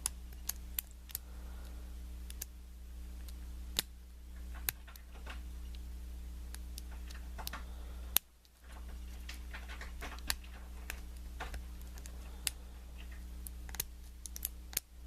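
Irregular small metallic clicks and ticks of a lock pick working the pin stack of a small brass Wilson Bohannon padlock, over a steady low hum that drops out briefly about halfway through. The picker believes he has overset a pin.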